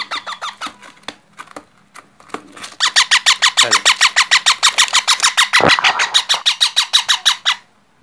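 Baby parakeet calling: a short chatter of quick squawks at the start, then from about three seconds in a loud, fast, even run of short squawks, about ten a second, that stops shortly before the end.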